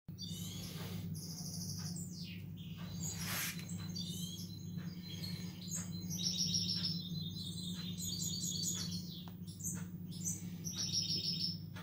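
Small songbirds chirping, with quick trills of high repeated notes in the middle and again near the end, over a steady low hum.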